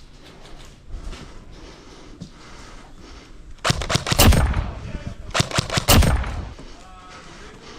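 Airsoft electric rifle firing two short full-auto bursts of rapid clicking shots, the second following about a second after the first.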